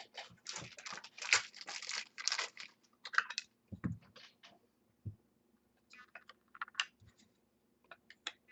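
Trading cards and plastic card holders being handled: irregular rustling and scraping for the first few seconds, then scattered light clicks.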